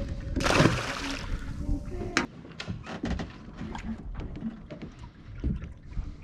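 Knocks and clatter from handling gear on a small fishing boat: a short rush of noise about half a second in, then scattered sharp knocks and clicks.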